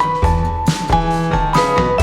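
Background music: upbeat piano or electric-piano tune over a steady drum beat.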